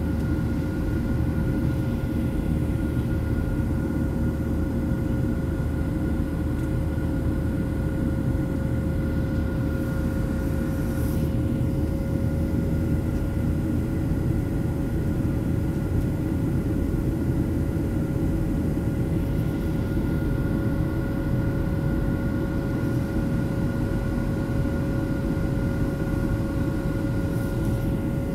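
Steady cabin drone of a Boeing 737-700 in flight, heard from a seat over the wing. The CFM56-7B turbofans run with a dense low rumble and a few steady whining tones on top.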